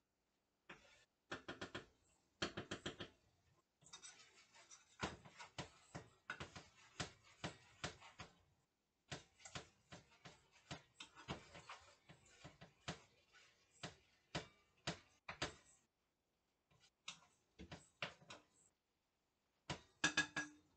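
Faint, irregular clinks and knocks of utensils and cookware being handled at a stove, a few of them with a short metallic ring.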